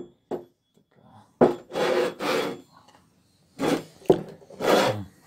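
Heavy steel milling cutters being handled and slid over a wooden workbench: a few short scraping rubs, and a sharp knock a little after four seconds in as a cutter is set down.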